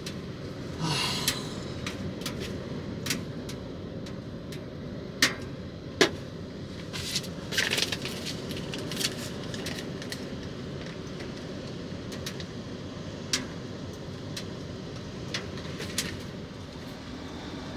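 Steady hiss of heavy rain on the panel van's body, with about a dozen scattered sharp clicks and taps over it.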